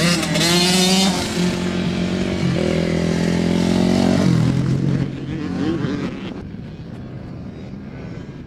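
Dirt bike engine revving up and dropping back in steps as the bike rides the track. It grows quieter about five seconds in as the bike moves away.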